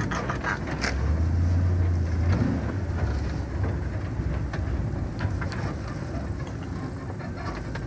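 Car driving slowly, heard from inside the cabin: a steady low engine and road hum that swells for about a second and a half a second in, with a few scattered light clicks and knocks.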